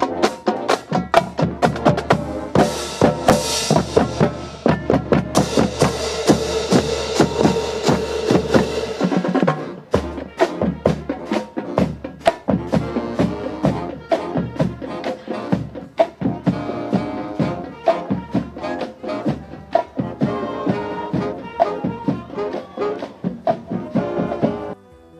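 Band music with a drum kit and brass playing to a steady beat. It drops out briefly about ten seconds in and stops suddenly near the end.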